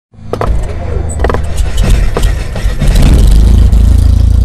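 Sound effects for an animated logo intro. A deep low rumble with a run of sharp clicks and hits over its first two seconds builds into a steady, loud low drone about three seconds in.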